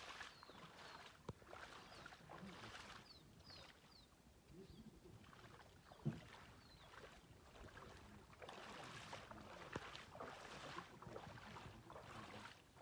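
Faint sloshing of shallow floodwater, coming and going in irregular swells, with a light knock about six seconds in.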